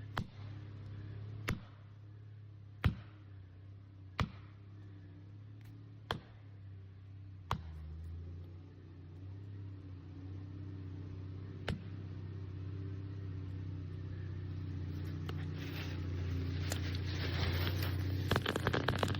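A series of sharp knocks over a steady low engine hum. The first six knocks come roughly every one and a half seconds, and a last one follows several seconds later. A louder, rougher noise builds near the end.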